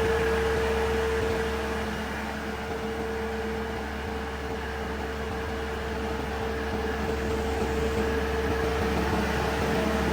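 Steady machine hum with a constant whine, no breaks or impacts.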